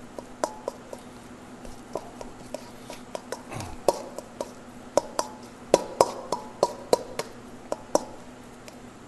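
Metal spoon clinking and scraping against a stainless steel mixing bowl as baked potato pulp and filling are mashed together. The clicks come irregularly, some with a short ring from the bowl, and grow more frequent and louder about four seconds in.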